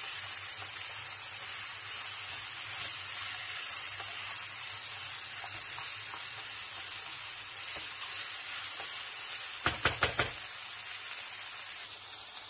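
Chicken, mushrooms and peppers sizzling in a frying pan as they are stirred with a spatula, the tomato paste frying in with them; a steady hiss, with a brief run of sharp clicks about ten seconds in.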